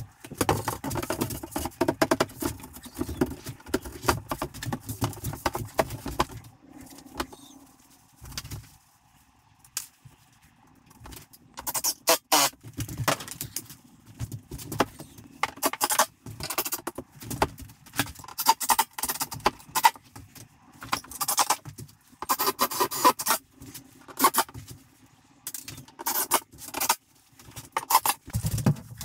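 A large QuickDeck wood-composite ceiling panel is carried and fitted against the ceiling battens, with scraping, knocking and rattling as it goes. After a short lull, a long series of short, sharp bursts runs through the second half while the panel is fixed in place.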